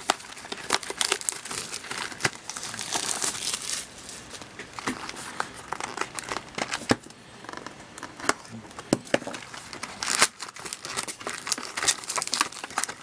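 Plastic shrink wrap on a sealed trading card box being torn and crinkled off by hand, an irregular run of crackling with sharp snaps.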